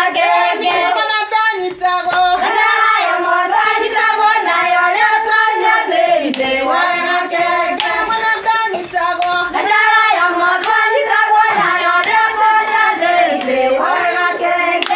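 Singing voices carry a wavering melody throughout, with a few sharp hand claps.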